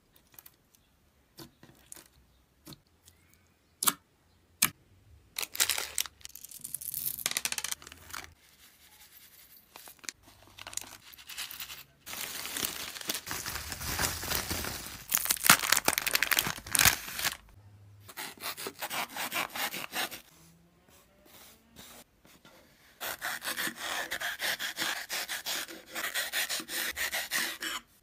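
Close-up handling sounds: a few scattered sharp clicks, then long stretches of dense crackling and crinkling, like plastic packaging and bubble wrap being unwrapped.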